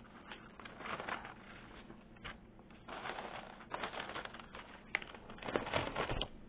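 Plastic Chips Ahoy cookie bag crinkling and rustling in irregular bursts as a hand digs in and handles it. Near the end there are sharper clicks and low knocks of the recording phone being handled.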